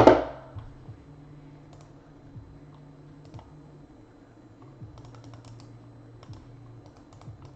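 Light, irregular clicking of typing on a computer keyboard, after one loud thump right at the start, over a faint low hum.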